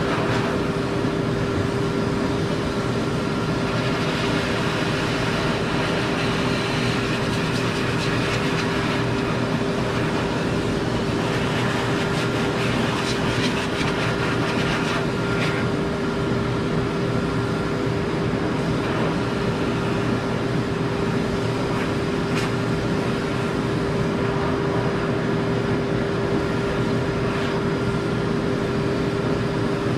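Hose-type pet grooming dryer running steadily, blowing air through its hose onto a wet puppy's coat: a constant rush of air with a steady motor whine.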